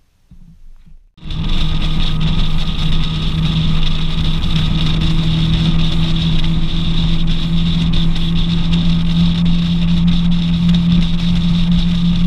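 Boat's outboard motor running steadily, loud and even, starting abruptly about a second in.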